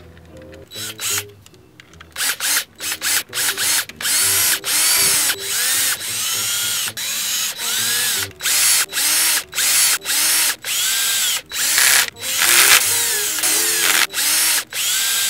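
Cordless drill/driver running in the bolts of a Honda Rebel's clutch lifter plate, in a long series of short trigger pulses from about two seconds in, each whirring up and then down in pitch.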